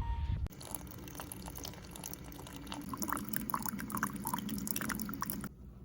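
Rain falling and dripping, a dense patter of small drops with a few louder drips in the middle; it cuts off suddenly near the end.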